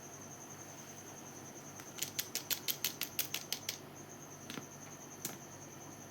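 A quick run of about ten sharp tapping clicks, about six a second, then two single clicks a little later, over a steady high-pitched pulsing tone.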